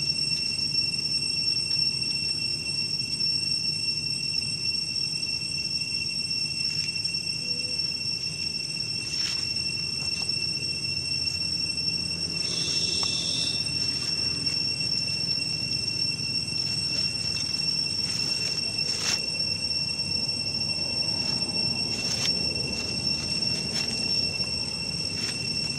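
Steady high-pitched insect buzz, one unbroken tone with a fainter one an octave above, over a low background rumble. Scattered faint clicks, and a short noisy burst about halfway through.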